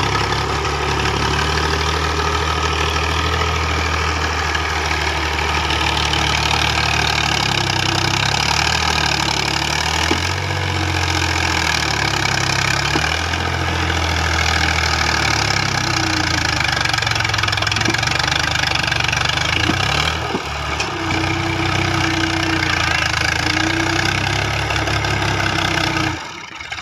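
A 480 tractor's diesel engine runs steadily under load as it pulls a cultivator through the soil. Its note shifts up and down a little through the middle and dips briefly near the end.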